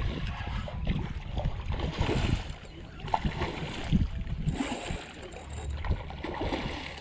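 A hooked snook splashing and thrashing at the water's surface, with heavy wind rumble on the microphone; the splashing is loudest about two seconds in and again a little after four seconds.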